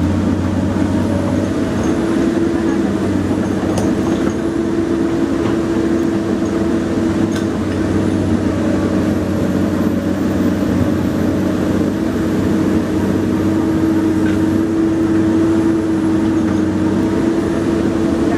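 Komatsu PC200 excavator's diesel engine running steadily under work, with a steady whine over it and a few faint knocks.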